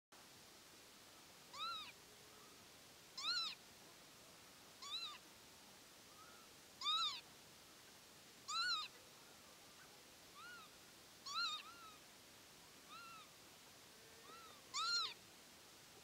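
Northern lapwing calling its 'pee-wit' cry over and over: short calls that rise then fall in pitch, about every one and a half to two seconds, some loud and some fainter in between.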